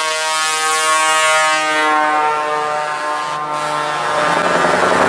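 Truck air horn blowing several notes in turn, each a held chord that steps to a new pitch about every second. Engine and road noise from the passing trucks grows near the end.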